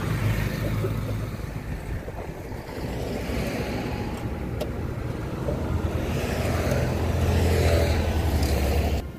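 A motor vehicle engine running steadily with a low drone that swells over the last few seconds and then cuts off suddenly.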